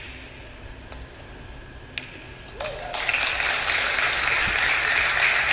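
A snooker cue tip strikes the cue ball with a sharp click about two seconds in; about half a second later audience applause breaks out and keeps going.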